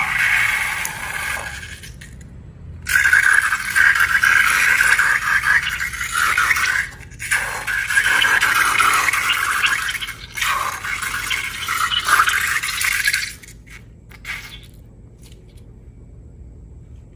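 Rough scraping and crackling from slime-making materials being handled, in four bursts of a few seconds each, followed by a few light clicks near the end.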